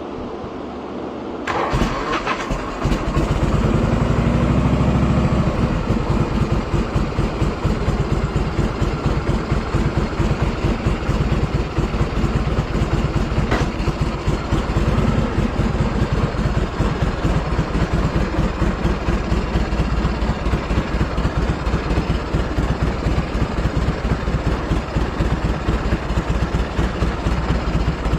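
Harley-Davidson Shovelhead V-twin with a freshly rebuilt top end starting about a second and a half in. It revs up briefly, then settles into a steady, rapidly pulsing idle.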